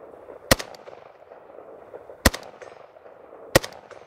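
Three single shots from a short-barrelled 7.62x39 AK-pattern pistol fitted with a four-piece muzzle brake. They are fired at a slow, even pace, about a second and a half apart, and each sharp report trails off in a brief echo.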